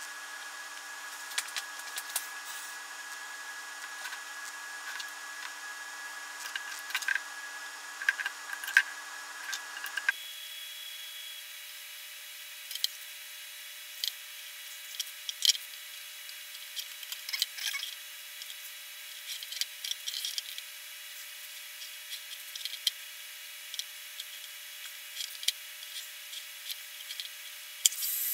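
Fingers pressing and rubbing a vinyl sticker skin onto a drone's plastic arms: scattered light taps and rubs over a steady faint hum. Near the end a louder rushing hiss starts as a heat gun is switched on to warm the vinyl.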